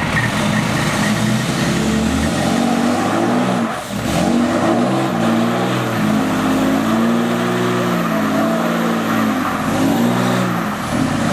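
Lifted Dodge Ram's Cummins turbo-diesel held at high revs while its rear tyres spin and smoke on the pavement: a burnout, the truck straining against a load too heavy for it to pull. The engine note sags about four seconds in, then climbs back, and a thin high whine joins about five seconds in.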